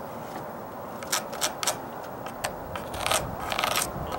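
Pencil scratching a mark onto a wooden 2x6 board. A few sharp ticks come about a second in, followed by short scratchy rubbing strokes in the second half.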